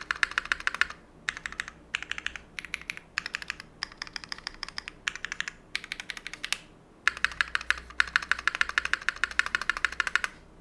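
Fast typing on a Monokei Kei R2 mechanical keyboard with tactile Holy Panda switches in a brass plate and GMK keycaps: rapid clacking keystrokes in bursts with short pauses, and a metallic ping ringing out for about a second midway. The typing stops just before the end.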